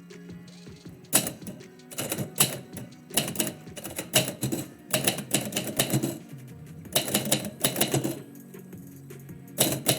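Typewriter keys struck in quick bursts of clacks, with short pauses between bursts, over background music.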